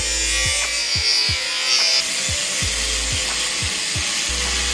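Angle grinder with a cut-off disc cutting through the metal frame of a car bucket seat, a steady high-pitched grinding hiss. Background music with a steady thumping beat plays underneath.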